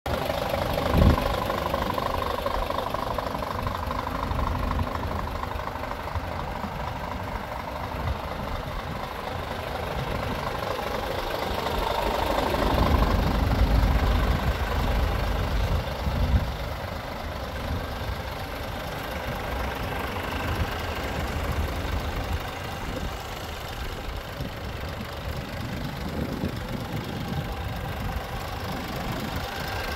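Scania G450 truck's 13-litre straight-six diesel idling steadily, with a single sharp knock about a second in.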